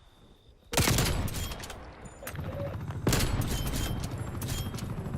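Automatic gunfire in a first-person shooter video game. A sudden burst of rapid shots comes about a second in, and a second burst of rapid fire starts about three seconds in.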